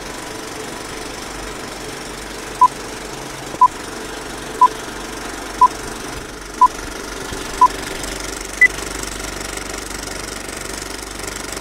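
Old-film countdown leader sound effect: a steady whirring clatter of a film projector, with a short beep once a second, six times, then one higher-pitched beep a second later.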